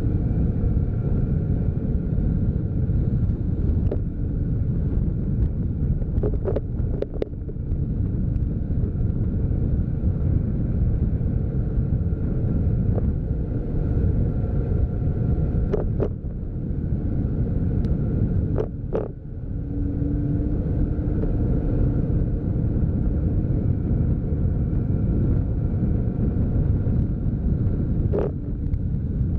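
A vehicle driving along a paved road: a steady engine hum under constant low road rumble. A few short knocks or rattles break through, two close together about seven seconds in, one near sixteen seconds, two around nineteen seconds and one near the end.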